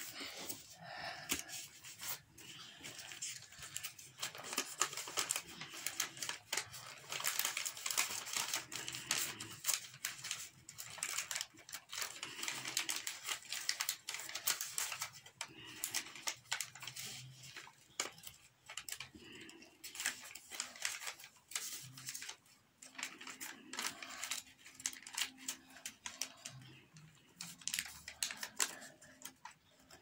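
A sheet of white paper being folded and creased by hand: irregular crinkling and rustling with many sharp little clicks as folds are pressed down.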